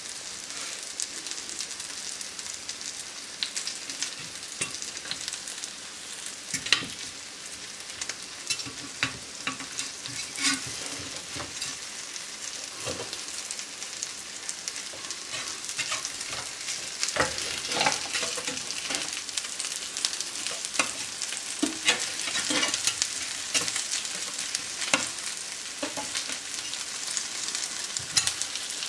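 Potato-and-cheese sandwiches sizzling steadily in a margarine-greased ribbed grill pan over medium heat, with a constant hiss and scattered crackles and pops that grow busier about halfway through.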